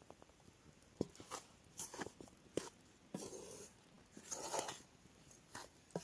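Wooden spoon working in an enamel bowl of flour and liquid, faint. It gives a few sharp knocks against the bowl and two short scraping, stirring stretches in the second half.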